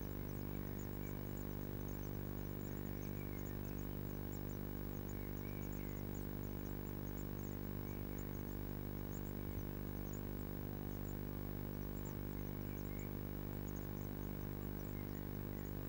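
Blue tit nestlings giving a continual stream of short, very high-pitched begging calls, over a steady low electrical hum.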